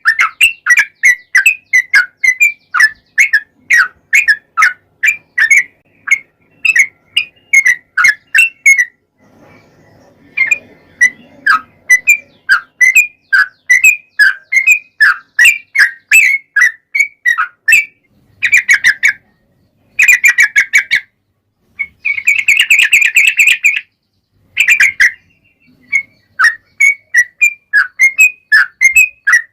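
Yellow-vented bulbul (trucukan) singing a long run of short, chirpy notes, about three a second, breaking off briefly about a third of the way in and turning into denser bursts about three-quarters of the way through.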